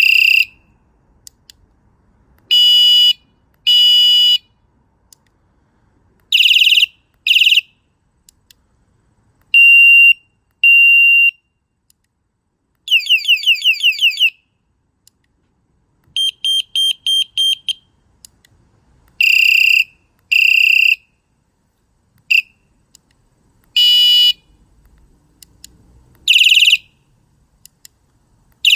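Battery-powered electric bike horn sounding loud, high-pitched electronic tones in several patterns: mostly short blasts in pairs, a warbling siren-like sweep about halfway through, and a quick run of beeps a few seconds later.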